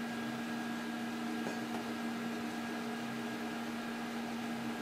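Steady electrical hum with a faint even hiss from powered-up bench electronics: an oscilloscope and lab power supplies.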